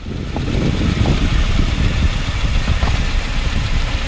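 2018 Subaru Outback 2.5i rolling slowly out of a driveway and down a curb, its 2.5-litre flat-four engine and road rumble heavy, with a few light knocks. This is where the owner hears a clunk from the driver's-side front wheel, a fault whose cause is unknown.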